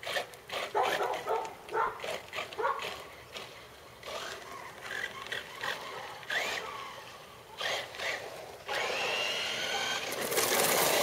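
A dog yipping and whining in short bursts during the first few seconds. Then, from about three-quarters of the way in, the electric motor of an RC truck whines steadily, its pitch rising and falling as it speeds up and slows.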